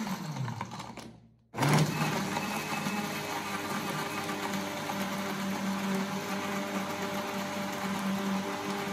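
Philips countertop blender blending a smoothie. The motor winds down with a falling pitch, stops for a split second, then starts again with a rising whine and runs steadily.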